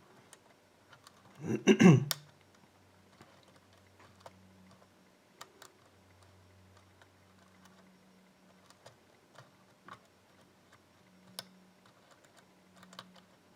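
Faint, scattered small metallic clicks of a lock pick and tension wrench working the pins of a five-pin pin tumbler lock. A brief vocal sound comes about two seconds in.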